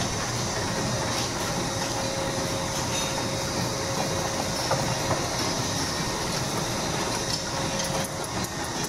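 High-speed continuous cartoning machine running at about 150 cartons per minute: a steady mechanical clatter from its conveyors and folding arms, with a thin steady tone underneath.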